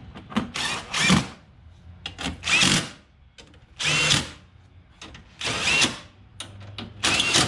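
Cordless drill/driver run in five short bursts, its motor whirring up and down each time, driving the bumper's screws back in.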